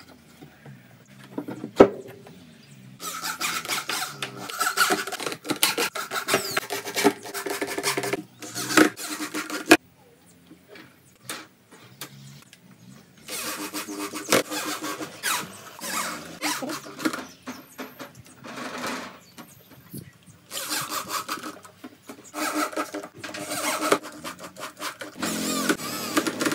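Cordless drill/driver driving screws through a steel mesh grille into a subwoofer speaker cabinet, the motor whining in about four runs of a few seconds each with short pauses between.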